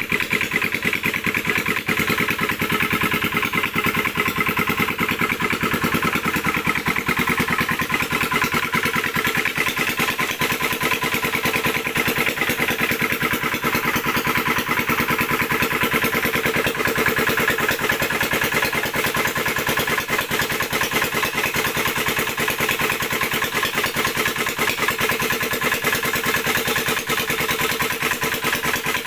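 An engine running steadily at an even speed, with a rapid, regular chugging.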